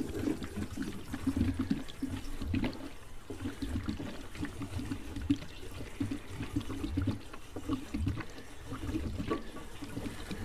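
Petrol pouring from a plastic jerry can through its spout nozzle into a motorcycle fuel tank, an uneven pulsing pour.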